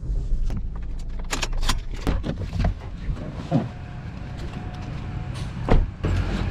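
Low rumble of a car with a run of sharp clicks and knocks, and a louder knock near the end, from doors being opened and shut.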